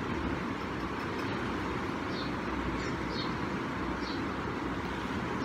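Steady rushing background noise with no speech, with a few faint, short high chirps about two and four seconds in.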